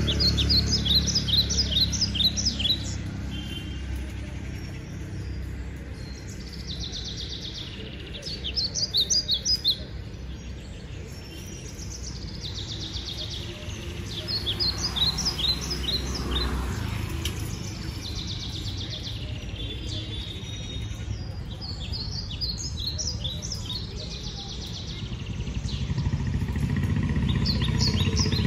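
Songbird calling in short bursts of rapid high chirps, repeated every several seconds, over a low steady background rumble.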